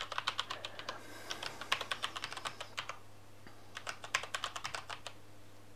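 Typing on a computer keyboard: a quick run of key clicks, a short pause about three seconds in, then a second run of keystrokes that thins out near the end.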